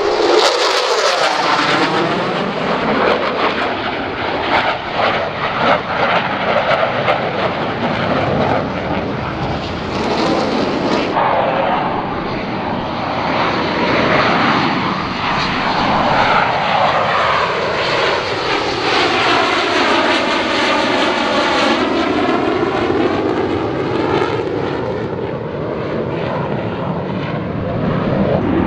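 A USAF Thunderbirds F-16 Fighting Falcon's jet engine roaring loud as the fighter passes and pulls up into a climb. The roar swells in suddenly at the start and has a swirling, phasing sweep that rises and falls throughout.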